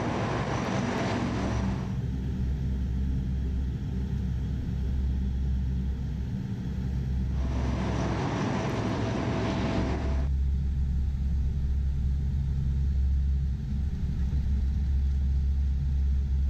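Lockheed C-130H Hercules four-engine turboprop engines and propellers running as the aircraft taxis. Mostly a steady, deep drone with an even low hum, with a broader, brighter hissing engine sound for the first couple of seconds and again for a few seconds in the middle.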